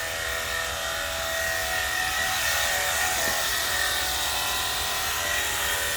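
Cordless battery-powered pressure washer running steadily: a constant electric pump whine over the hiss of its water spray.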